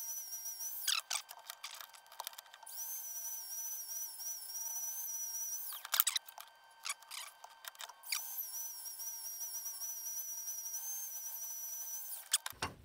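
Dremel rotary tool running at high speed with a high, slightly wavering whine; it is switched off and on twice, its pitch falling as it spins down and rising as it spins back up, with a few clicks in between. It is grinding relief behind the cutting edges of a homemade acme tap.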